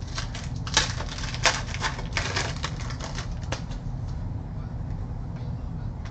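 Trading cards clicking and snapping as they are thumbed through and sorted by hand: a quick, irregular run of sharp clicks for about the first three and a half seconds, then they stop.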